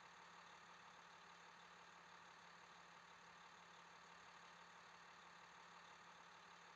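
Near silence: a faint, steady background hum and hiss with nothing changing.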